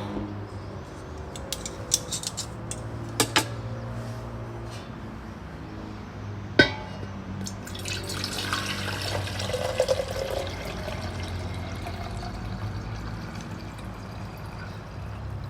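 A few light clinks and knocks of kitchenware, then one sharp clack. After that, liquid is poured into a glass for a few seconds, its pitch rising as the glass fills, over a steady low hum.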